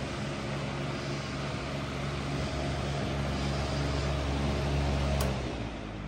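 A 2002 Patton U2-1487 high-velocity floor fan running at speed: a steady electric motor hum under a rush of moving air. The sound drops noticeably near the end.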